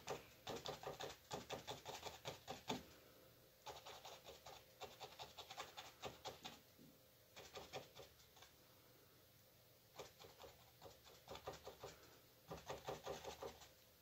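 Faint, quick taps of a worn paintbrush dabbing paint onto a stretched canvas on a wooden easel. The taps come in short runs with brief pauses between them.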